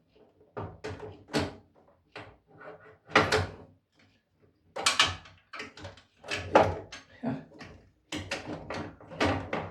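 Irregular clunks, knocks and rattles of parts being handled and fitted as the stairlift's drop-down bar is put back on, with the loudest knocks a few seconds in.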